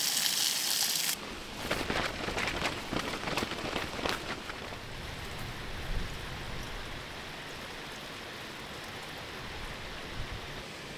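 Rain and wind on a tarp shelter: after a bright hiss that cuts off about a second in, a dense patter of drops and fabric taps for a few seconds, then a steady wash of wind and rain.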